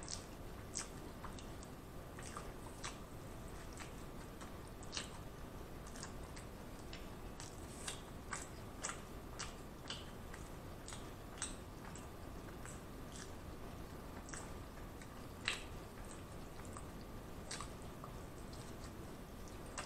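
Close-miked mouth sounds of a person chewing a mouthful of Big Mac: soft, wet smacks and clicks at irregular intervals, about one a second, with a sharper one about fifteen seconds in.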